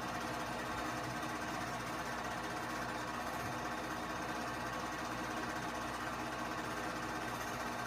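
Keystone K-502 8mm movie projector running steadily, its motor and film-advance mechanism making a fast, even mechanical clatter as the film runs through.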